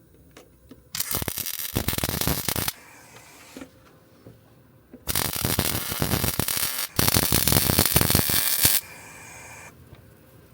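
Electric arc welder crackling in three short runs, each under two seconds, the last two almost back to back: a first-time welder tacking a steel patch plate onto a rusted car floor pan.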